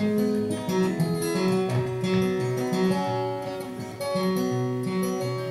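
Acoustic guitar playing alone, picked and strummed chords with notes ringing on, as an instrumental passage between sung verses of a folk song.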